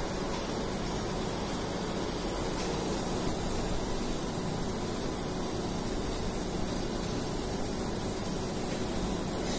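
UV laser marking machine running while it marks lettering on a glass jar: a steady, unchanging hiss with a low hum, like a cooling fan.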